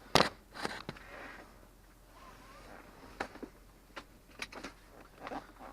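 Seatbelt being pulled across and buckled inside a vehicle cabin: a sharp knock at the start, rustling, then a few light clicks.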